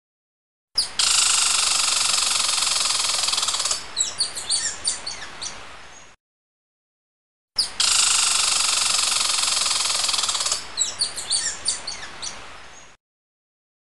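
An animal-call sound effect played twice, the same each time: a harsh, buzzing call lasting about three seconds that breaks into a run of short chirps and fades out, with a second and a half of dead silence between the two.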